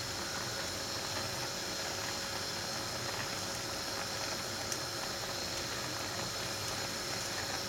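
Pieces of pollock fillet and onion frying in sunflower oil in a pan over high heat: a steady, even sizzle.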